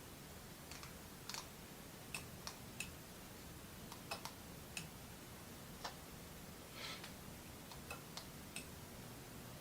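Faint, irregular light clicks and ticks, about a dozen over several seconds, with one short scrape about seven seconds in: small parts and wiring of a ceiling fan being handled while it is wired up.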